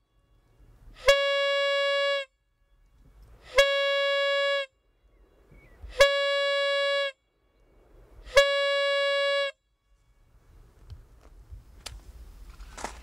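Hand-held brass signal horn blown by mouth: four long, steady one-note blasts about two and a half seconds apart, the blaster's warning signal before a detonation. Faint rustling and scuffing near the end.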